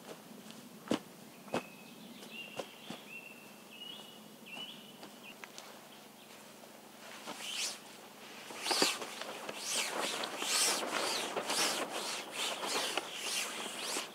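A person's footsteps and rustling on woodland ground littered with twigs and wood chips: a few scattered sharp snaps in the first seconds, then from about halfway a dense run of crunching and rustling as the person moves in under the tarp shelter. A few faint, high, bird-like notes sound in the first half.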